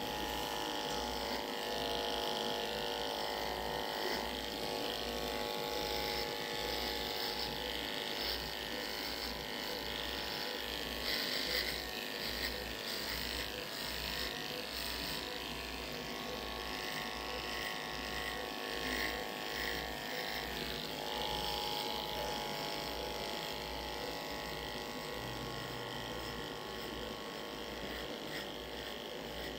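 Electric animal clippers buzzing steadily as they shave the fur from a dog's abdomen to prepare the surgical site for a spay.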